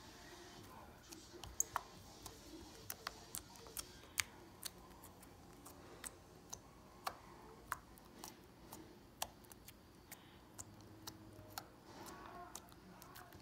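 Thick Flarp putty giving small sticky clicks and pops as a finger pokes into it and pulls out, irregular, a couple a second.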